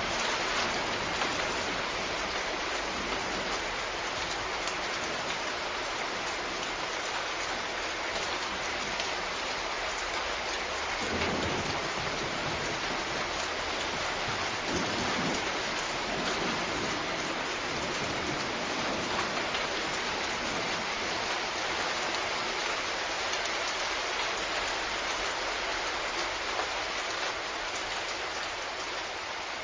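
Steady rain falling, an even hiss with no music. There is a brief low rumble about eleven seconds in, and the sound fades slightly near the end.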